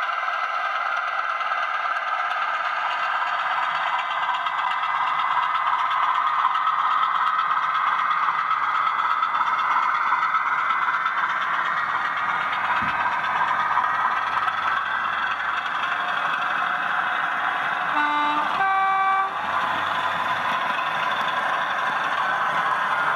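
00 gauge model diesel train running along the track with a steady whirring, a little louder as it passes close by midway. About 18 seconds in, a two-note diesel horn from the model's DCC sound decoder sounds briefly, lower note then higher.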